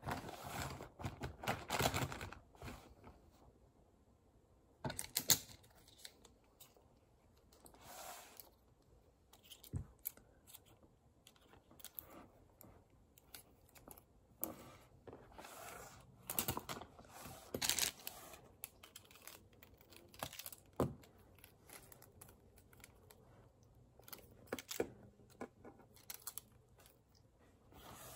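Plastic pens handled over a wooden table: scattered light clicks and taps as they knock against each other and the tabletop, with short bursts of rustling.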